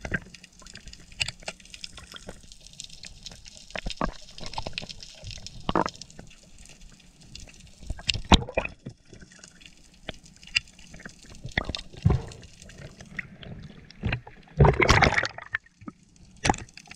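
Underwater clicks and crackles as scissors snip the venomous spines off a speared lionfish, the loudest snip a little past the middle. A longer rush of noise comes about two-thirds of the way through.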